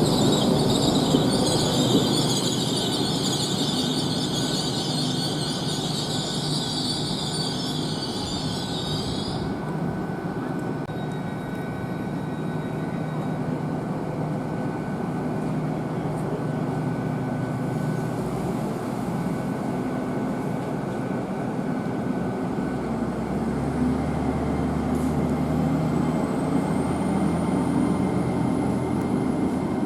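A train running on the line with a loud, high-pitched wheel squeal that cuts off suddenly about a third of the way through, leaving a steady rumble. A low drone joins near the end.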